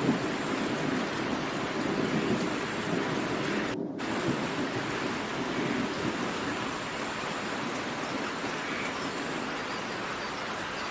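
Heavy rain hissing steadily, with a low rumble of thunder that fades away over the first six seconds or so. Just under four seconds in, the rain's hiss cuts out for a split second.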